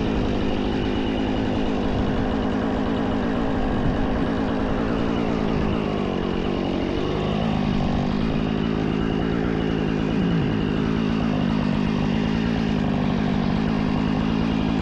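Jonsered two-stroke chainsaw running steadily, its pitch dipping about six seconds in and climbing back a second or so later.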